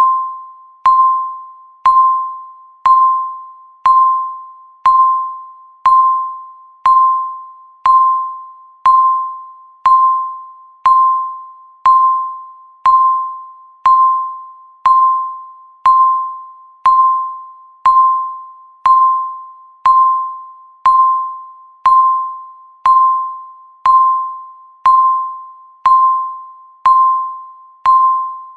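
Countdown timer's electronic tick sound effect: a sharp click with a ringing, bell-like tone that fades away, repeating evenly once a second.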